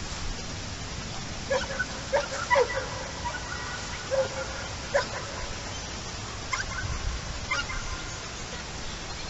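Animal calls: about eight short, pitched honking cries, several close together about two seconds in and the rest spaced out after, over a steady background hiss.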